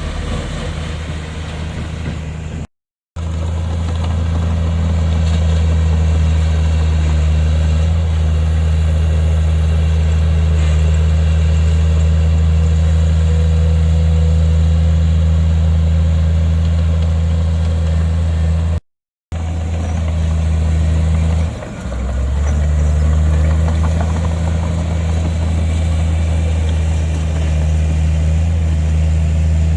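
Heavy diesel engine of an earthmoving machine running steadily with a deep, even drone. The sound cuts out to silence twice for a moment, about 3 seconds in and again about 19 seconds in.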